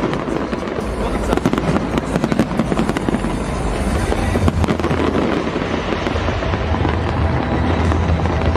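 Large fireworks display: many bursts and crackles overlapping in a dense, continuous barrage, with a steady low hum joining about halfway through.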